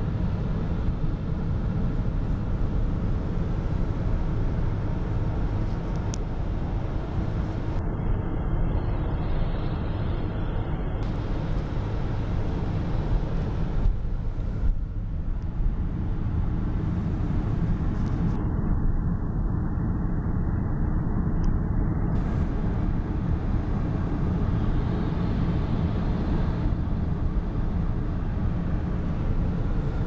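Steady cabin noise of a car travelling at motorway speed: a low rumble of engine and tyres on a wet, slushy road, unbroken throughout.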